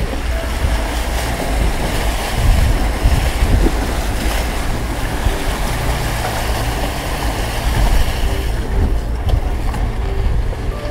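Toyota FJ Cruiser driving through a shallow creek crossing, water rushing and splashing under the vehicle with heavy wind rumble on the microphone, then rolling out onto the dirt track near the end.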